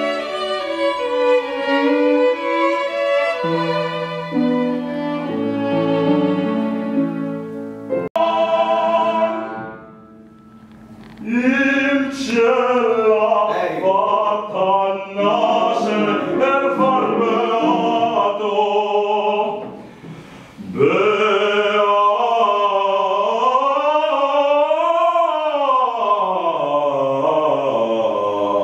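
Two violins and a piano playing classical music. About eleven seconds in, after a break, a solo voice sings in operatic style with wide vibrato, its line rising and falling, with a short pause for breath about two-thirds of the way through.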